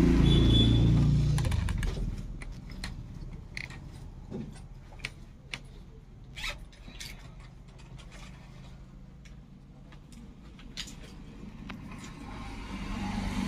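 A motor vehicle's low rumble fades away over the first second and a half. After it come scattered light clicks and rustles of handling, over a quiet background.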